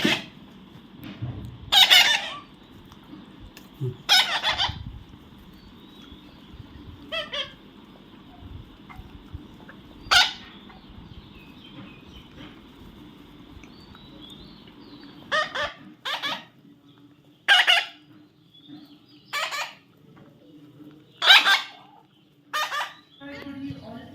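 A baby parrot squawking: about a dozen loud, short calls at uneven intervals, coming closer together in the second half.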